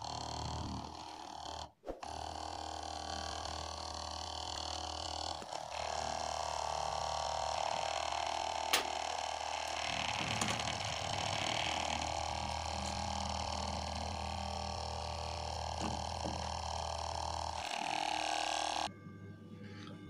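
Small 12 V DC motor running steadily, spinning a washing-machine drain-pump motor used as a generator: a steady mechanical hum with one sharp click midway, cutting off near the end.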